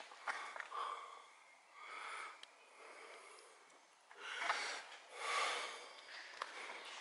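A person breathing heavily close to the microphone while walking, with two louder breaths about four and a half and five and a half seconds in. A few faint footsteps and clicks sound on a gritty concrete floor.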